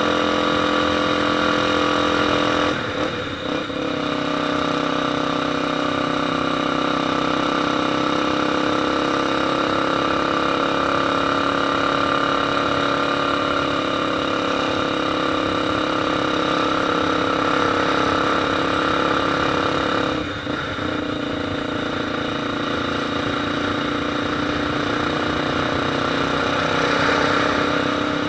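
Motorcycle engine idling steadily, its note dipping and shifting slightly twice: a few seconds in and about two-thirds of the way through.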